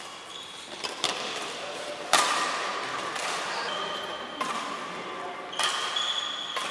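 Badminton rally: sharp racket hits on the shuttlecock about once a second, echoing in a large hall, with short high squeaks of shoes on the wooden court between them.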